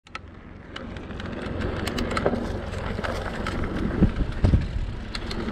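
Mountain bike being ridden: a steady low rolling rumble from the tyres and frame, with scattered sharp rattling clicks. Two heavier knocks come about four seconds in as it runs onto a rough grass track.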